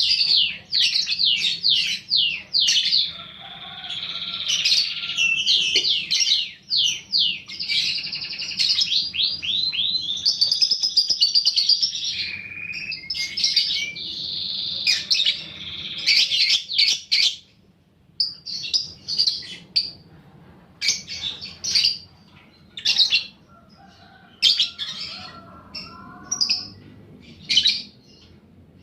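Young lovebird chattering in a long unbroken run of rapid, high chirps, the drawn-out 'ngekek' chatter. About seventeen seconds in it breaks into short separate chirps, roughly one a second.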